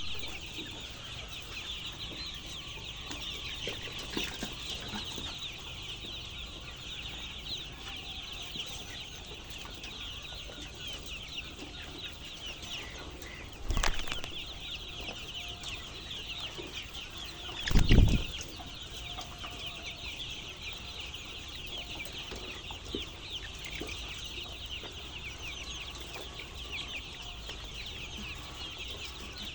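A large flock of chicks peeping continuously, many high, short cheeps overlapping. Two dull thumps cut in about halfway through and again some four seconds later; the second is the loudest sound.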